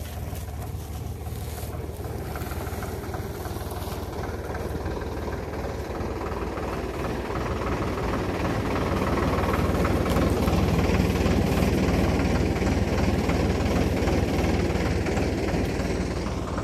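Vehicle engine running with a steady low rumble, growing louder from about eight seconds in and easing off near the end.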